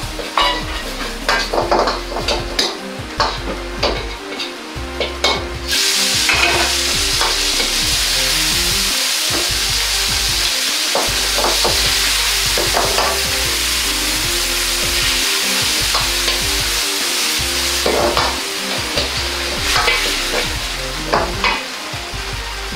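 Stir-frying in a carbon-steel wok: a metal ladle scrapes and clanks against the wok as garlic and chili fry in oil. About six seconds in, more food goes into the hot wok and a loud, steady sizzle takes over, with the ladle clanking now and then as the stir-fry is tossed.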